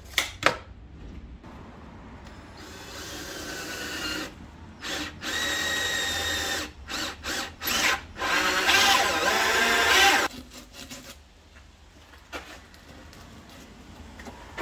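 Cordless drill running a hole saw through a white-finished panel: a whining run in several short bursts, then a longer, louder run of about two seconds that stops suddenly. Two sharp clicks come at the very start.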